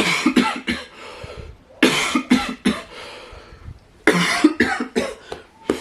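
A person coughing in three fits of several coughs each, about two seconds apart, with one more cough near the end.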